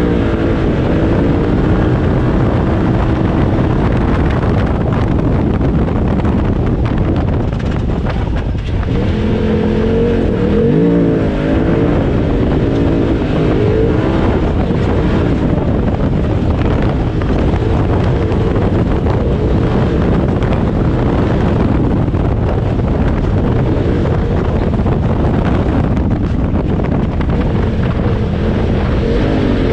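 Side-by-side UTV engine heard from inside the cockpit while driving hard on a dirt track, with a constant rumble of engine, tyres and wind. The revs rise and fall several times about nine to fourteen seconds in and again near the end.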